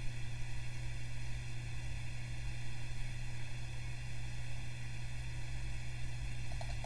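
Steady low electrical hum with an even hiss underneath: the background noise of the recording microphone.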